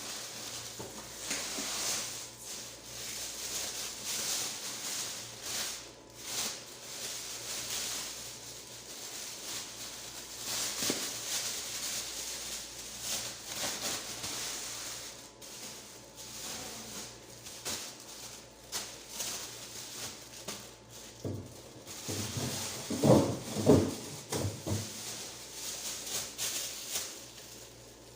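Plastic bags and vegetables rustling as produce is handled and sorted, with small clicks, and a short run of louder knocks about three quarters of the way through.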